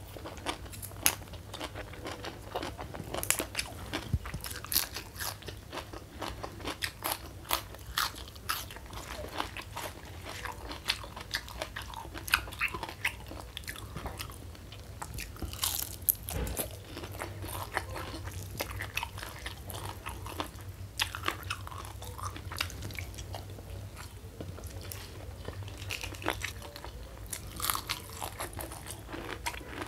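Close-miked crunching and chewing of crispy fried mushroom and raw vegetables: an irregular run of crisp crackles and bites, one after another.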